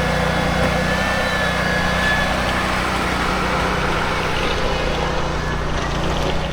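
An engine running steadily with an even, unchanging drone.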